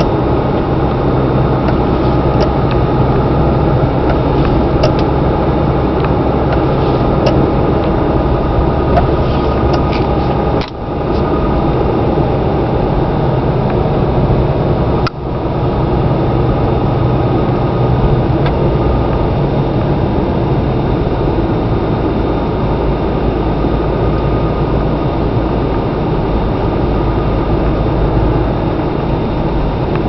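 Cummins 6.7-litre inline-six turbo diesel of a Dodge Ram 3500 running steadily while driving, heard from inside the cab. The drone briefly drops out twice, about eleven and fifteen seconds in.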